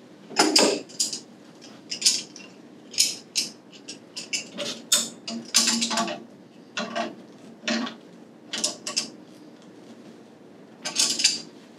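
A hand wrench gripping and turning threaded pipe fittings as the gauge ports are tightened into the valve trim. It makes a run of irregular sharp metal clicks and scrapes, with a short pause near the end.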